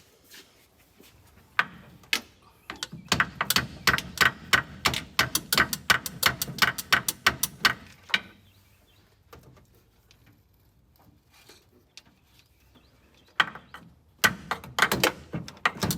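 Quick runs of sharp metallic clicks and light clanks, several a second, in two spells: one starting about three seconds in and lasting some five seconds, another near the end. This is metal hand work on a tight header fitment.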